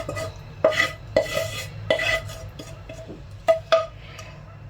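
A serving utensil clinking and scraping against a pan and serving dish as cooked mussels in tomato sauce are spooned out, with several sharp clinks, two close together near the end.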